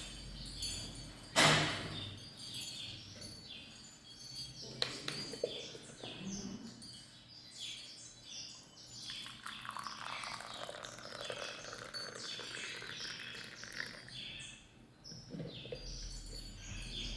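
Small birds chirping over and over in short high calls, with one sharp knock about one and a half seconds in.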